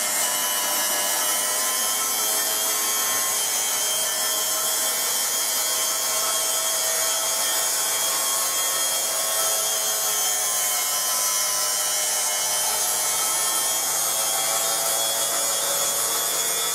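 Model steam turbine locomotive running under about 100 psi of steam: its 60 mm single-wheel steam turbine and 36:1 gearbox give a steady high whine, several tones drifting slightly in pitch, over the hiss of escaping steam.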